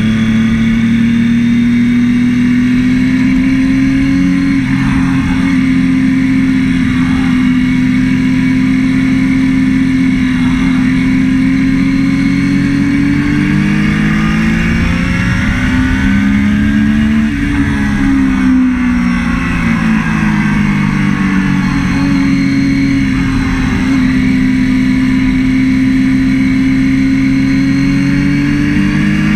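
Triumph Daytona 675's three-cylinder engine running at steady high revs under a steady rushing noise. About halfway through, the engine note rises, falls away and then builds back up to its steady pitch.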